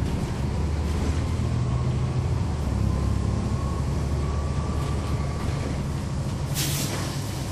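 On-board sound of a 2011 NABI 416 transit bus: its Cummins ISL9 straight-six diesel running steadily under way, with a faint whistle from the ZF Ecolife six-speed automatic transmission that rises slightly in pitch and then holds. A brief hiss cuts in about six and a half seconds in.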